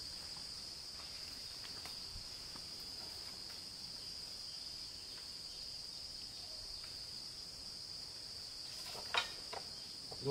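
Steady chorus of insects in the undergrowth: a continuous high, even buzz. A couple of short sharp sounds come about nine seconds in.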